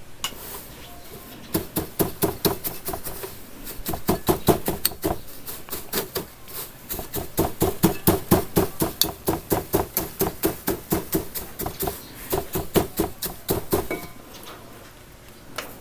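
Sawdust screen being tapped by hand in quick runs of about five taps a second, with short pauses, shaking the sawdust so the fine particles fall through and the coarser sawdust and debris stay on top.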